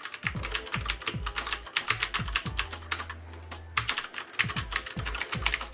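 Clicky Cherry MX Blue switches on a Ducky One mechanical keyboard being typed on quickly, a dense run of sharp key clicks with a short pause about three seconds in.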